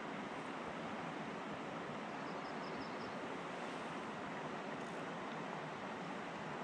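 Steady, even outdoor rushing noise with no rise or fall. About two seconds in there is a quick run of five faint high ticks.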